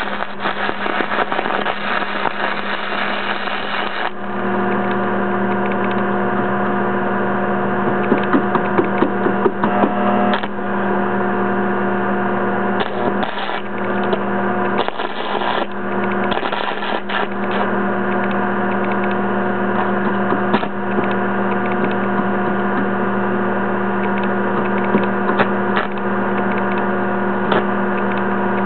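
DC cracker-box stick welder humming steadily while an aluminum welding rod is burned on reverse polarity, the arc crackling and sputtering against the aluminum.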